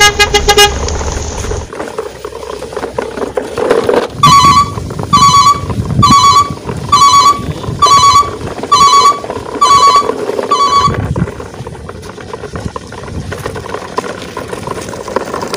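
Truck sound effects: a short horn toot at the very start, then eight evenly spaced electronic beeps, about one a second, like a truck's reversing alarm.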